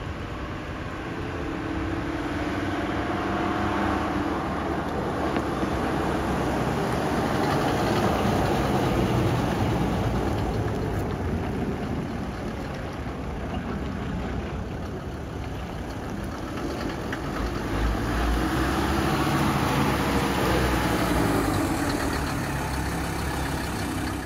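Mercedes-Benz G-Wagon 250GD's OM602 inline-five turbo diesel running as the truck drives by, the engine note swelling as it approaches, fading away, then swelling again as it comes past a second time.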